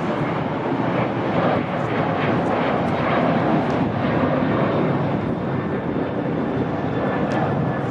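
Jet engines of a twin-engine airliner climbing out after takeoff: a steady, loud rushing noise that swells slightly midway.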